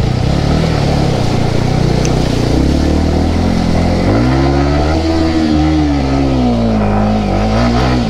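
Motorcycle engine running and revving. About halfway through its pitch rises sharply, then falls away slowly over the following seconds.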